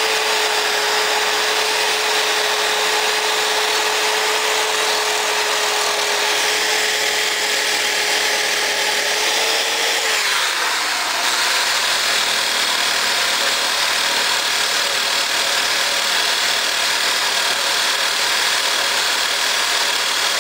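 Power tool spinning a worn wire wheel against a muffler pipe, scrubbing off rust and old paint to prepare the metal for MIG welding. It runs steadily throughout, and its tone changes about halfway through.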